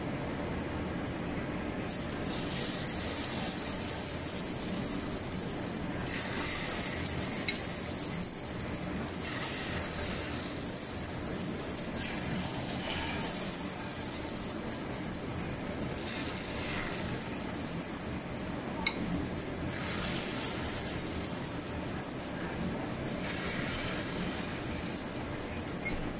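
Corn fritter batter sizzling in hot oil in a wok. The sizzle starts about two seconds in and swells again each time a fresh spoonful of batter goes into the oil.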